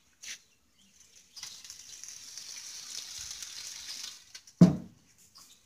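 Food sizzling on a grill, a steady hiss for about three seconds, then a single loud thump near the end as the grill lid is handled.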